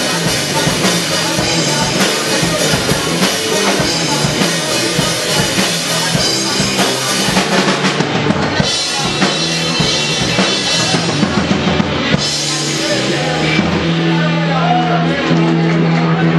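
A rock band playing live, with drum kit and bass to the fore; the cymbals drop out briefly twice, and held low bass notes come in near the end.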